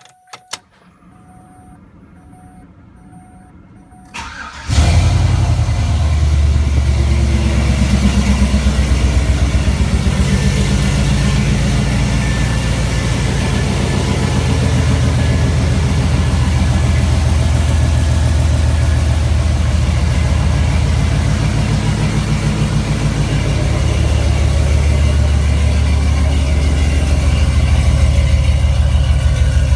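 Car engine cranked and started about four seconds in, after a few seconds of faint intermittent beeping, then idling steadily with an even exhaust pulse and no leak ticking, the exhaust leaks having been repaired.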